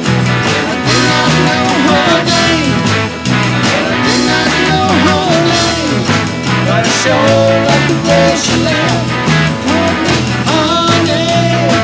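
Rock band playing an instrumental break with a steady beat: a harmonica lead with bending notes over acoustic guitar, electric guitar, bass guitar and electronic drums.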